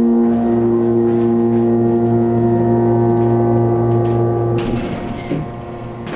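The pump motor of a 1970 Burlington Dover hydraulic elevator runs with a loud, steady hum as the car rises. A little over four and a half seconds in, the hum cuts off with a knock as the car stops at the floor, followed by a few softer knocks.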